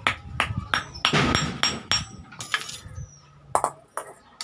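Hand hammer striking hot iron on an anvil in an irregular run of about ten blows, some ringing briefly with a metallic tone.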